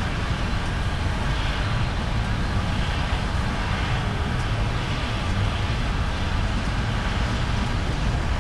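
Norfolk Southern intermodal freight train rolling past: a steady low rumble of the diesel locomotive and the wheels of the container well cars on the rails.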